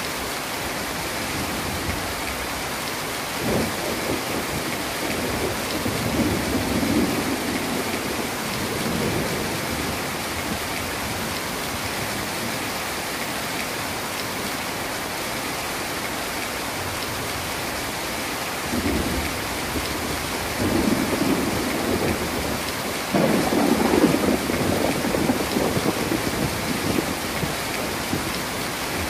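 Heavy rain falling steadily, with two long rolls of thunder: one starting a few seconds in and fading after several seconds, and a second, louder one rumbling through the later part.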